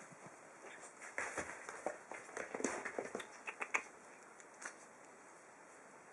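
Five-week-old puppies scuffling on bedding in a whelping box: a flurry of short scratches, rustles and taps from their paws and bodies for a few seconds, then it settles down.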